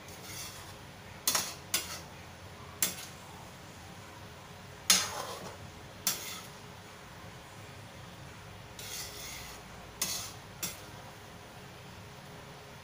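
Kitchen clatter: about seven sharp knocks and clinks of bottles and cookware being handled and set down on a tiled counter and shelf, the loudest about five seconds in, with a couple of brief scrapes.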